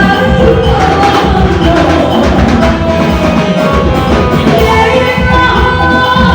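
Loud live band music: held melody notes over a steady drum beat.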